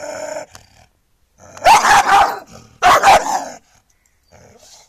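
An angry dog finishes a held growl about half a second in, then barks loudly twice, about a second apart, each bark drawn out.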